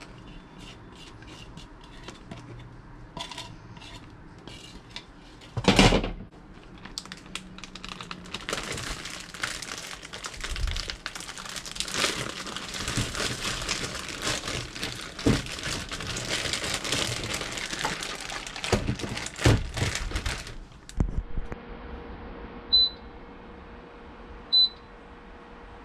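Plastic zip-top bag of chicken and marinade crinkling and rustling as it is squeezed and sealed, with a loud thump about six seconds in. Near the end, a Gourmia air fryer oven's control panel beeps twice as its buttons are pressed.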